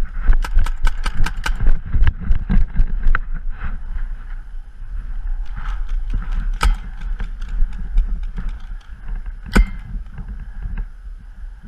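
A fast run of sharp clicks or pops, about seven a second, for the first two seconds, then scattered single ones, with two louder cracks in the second half. A steady low rumble of wind on the microphone runs underneath.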